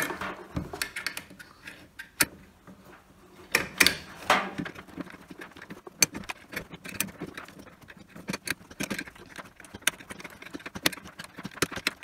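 8mm spanner working a bolt on the idler pulley mounting inside a tumble dryer: irregular metallic clicks and clinks as the spanner is fitted, turned and repositioned on the bolt.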